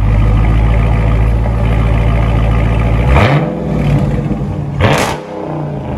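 Dodge Charger Scat Pack's 6.4-litre 392 HEMI V8 exhaust through Dynomax Race Bullet mufflers, idling steadily, then revved briefly twice, about three seconds in and again about five seconds in, falling back to idle.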